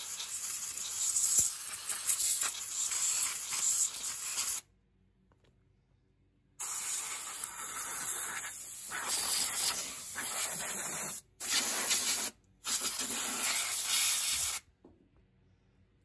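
Compressed-air blow gun hissing as it blasts dirt off a grimy small-engine carburetor: one burst of about five seconds, a two-second pause, then a longer burst cut by two short breaks near the end.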